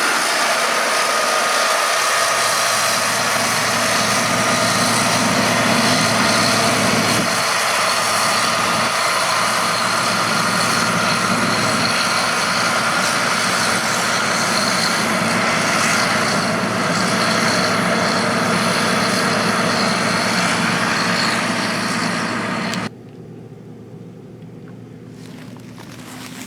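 John Deere 9650 STS combine running steadily while harvesting, its engine and machinery giving a continuous hum with a steady whine. About 23 seconds in the sound cuts off sharply, leaving a much quieter steady background.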